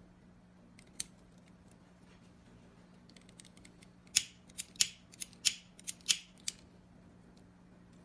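Sharp metallic clicks of brass threaded sensor fittings knocking together as they are handled: one click about a second in, then a quick run of about eight clicks over the next couple of seconds midway through.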